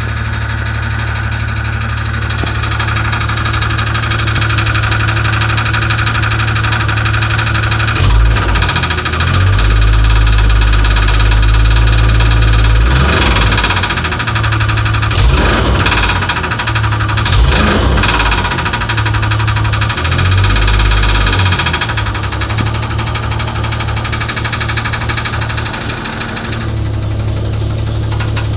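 4.0-litre engine of a 1994 Jeep Grand Cherokee running with a knock, idling, then revved up and down several times in the middle before settling back to idle.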